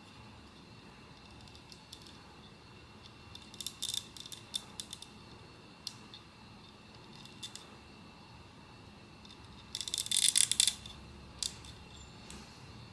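Blind-box packaging and hard plastic being handled by hand: scattered small clicks and crinkles, with a dense burst of crackling about ten seconds in.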